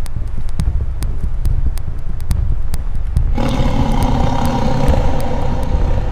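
Steady low rumble with scattered clicks, like wind buffeting the microphone. About three and a half seconds in, a loud droning sound with several held tones comes in suddenly and stays.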